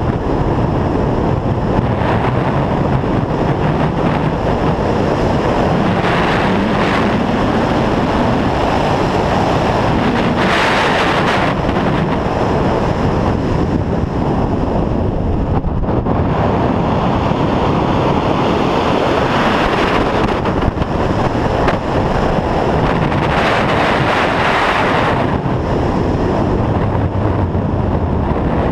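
Rushing airflow over a Grob G-103 glider in flight, heard as heavy, steady wind noise on the microphone. The hiss briefly turns brighter twice.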